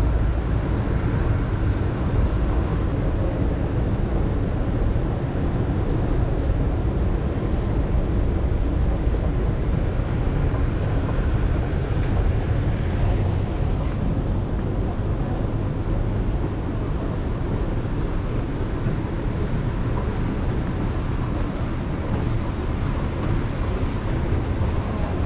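Steady low rumble and hum of an underground metro station, with escalators and ventilation running and faint crowd murmur.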